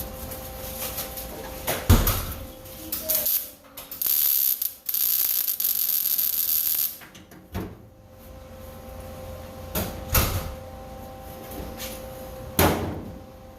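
Welding arc crackling while a tack weld is laid on a truck floor pan, about three seconds long with a brief break near the start, starting and stopping sharply. A few separate knocks come before and after it.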